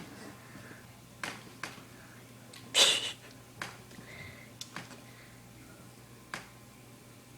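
A cat's paws and claws tapping and scuffling on stairs as it chases its tail: scattered sharp taps, with one louder scuffle about three seconds in.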